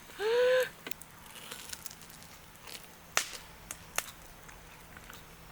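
A short, rising hummed "mm" from a woman's voice, then scattered sharp clicks and pops, like grill crackling.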